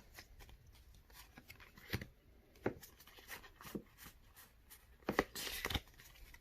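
Handling a Pokémon card booster pack and its cards: scattered soft taps and clicks, with a short rustle of the foil wrapper about five seconds in.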